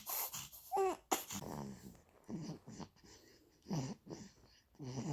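Baby making a series of short babbling vocal sounds, one with a rising-then-falling pitch about a second in, with quieter gaps between them.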